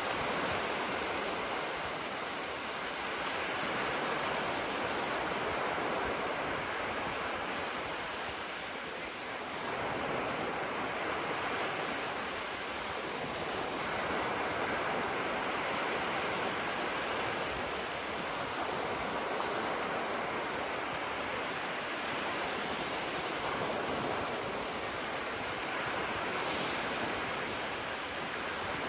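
Small waves breaking and washing on a sandy shore: a steady surf hiss that swells and eases every several seconds.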